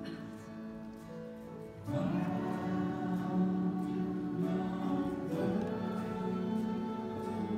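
A group of voices singing in slow, long-held notes, growing louder about two seconds in.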